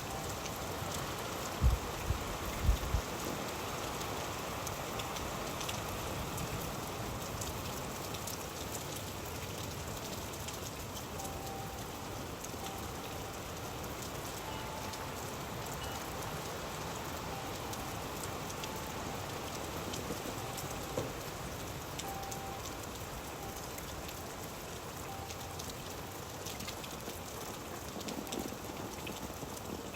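Steady rain falling, with many small drop ticks and a few low thumps about two seconds in.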